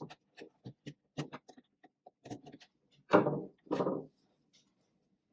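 Light clicks and ticks of a small power inverter's terminal screws being undone and its cables handled, with two louder clunks about three and four seconds in.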